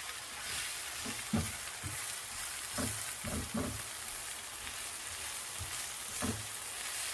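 Onions and dried Egyptian spinach leaves frying in oil in a pan: a steady sizzle, with a few soft knocks as a spatula stirs and turns them against the pan.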